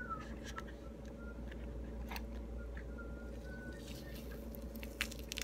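Pomelo (suha) flesh being peeled and pulled apart by hand: a few soft clicks and crackles, the sharpest about five seconds in, over a steady low hum.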